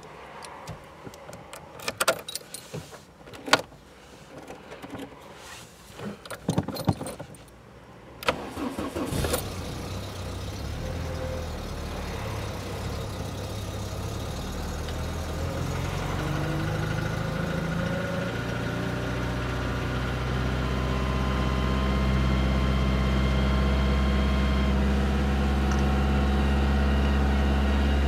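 A few clicks and knocks, then a car engine starts about eight seconds in and runs, its speed climbing slowly before it settles into a steady idle.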